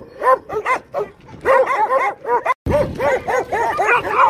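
Several dogs barking and yipping in quick succession, about three or four barks a second, breaking off for a moment about two and a half seconds in.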